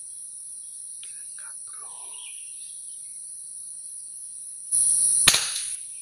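A steady high-pitched drone of insects runs throughout. About five seconds in, a brief rush of noise leads into one sharp crack: a shot from a scoped air rifle.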